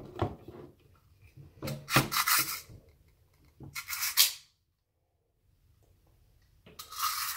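Handling noise from a plastic airsoft gun and its magazine: a few separate bursts of plastic clicking and rubbing, with a cluster of knocks about two seconds in and a longer scraping rub near the end.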